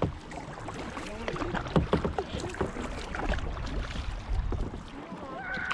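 Kayak paddles dipping and splashing in lake water in irregular strokes, with water washing along the hull and low wind rumble on the microphone.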